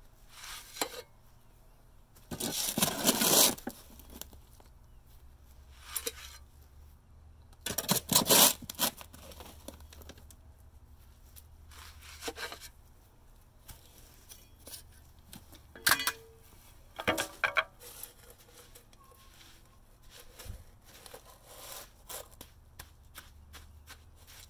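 Steel shovel scooping and dumping damp concrete mix onto the ground: two loud gritty scrapes, about two and eight seconds in, followed by scattered lighter scrapes and knocks.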